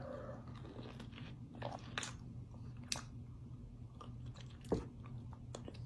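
Faint mouth sounds of a person biting into a lemon wedge and chewing it, heard as a few soft, scattered clicks.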